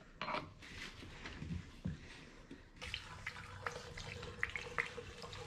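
Gasoline poured from a plastic gas can through a funnel into a small plastic bottle, trickling, with a few light knocks of plastic.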